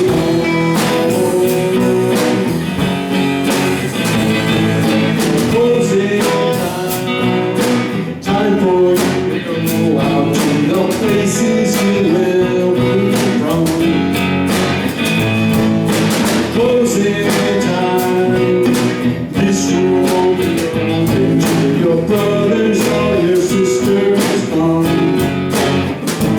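Live band rehearsing a guitar-led pop-rock song, with a steady beat and some singing.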